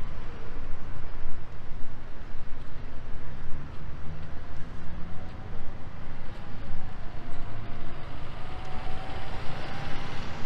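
City street ambience with light traffic, the low end filled by fluttering wind rumble on the microphone. A faint steady tone, rising slightly, comes in during the second half.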